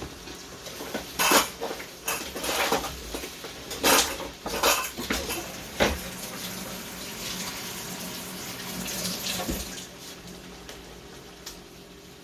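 Chicken pieces being laid into a pan of hot oil, the oil sizzling, with about six sharp clatters of a utensil against the pan in the first six seconds.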